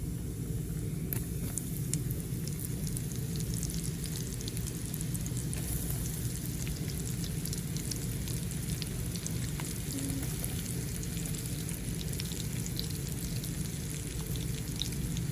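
Pieces of chinchin dough deep-frying in hot canola oil: a steady sizzle with a dense crackle of small pops, over a low steady rumble.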